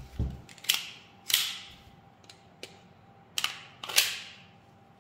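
Army Armament R601 Combat Master gas-blowback airsoft pistol firing twice, about a second and about four seconds in: each shot is a sharp pop with a short fading hiss of gas, preceded by a lighter click. A dull knock at the start.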